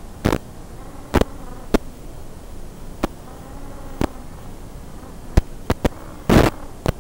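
Faint buzzing whine of a small FPV racing quadcopter's motors, wavering in pitch with the throttle, over a steady hiss, broken by irregular sharp crackles and one louder burst of crackle about six seconds in.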